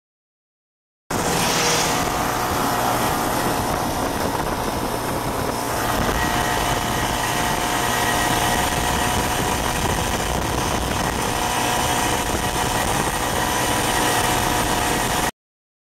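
Snowmobile engine running steadily while the sled is ridden, heard from the rider's seat behind the windshield. The sound starts abruptly about a second in and cuts off abruptly near the end.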